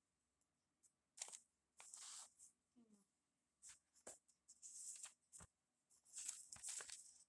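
Faint rustling and crinkling of notebook paper in irregular short bursts, with a few sharp clicks, as the notebook is handled close to the phone's microphone.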